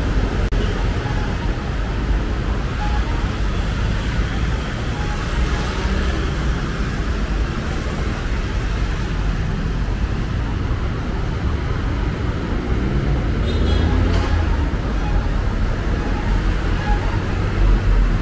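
Busy city road traffic: a steady rumble of passing vehicles, swelling louder about fourteen seconds in and again near the end.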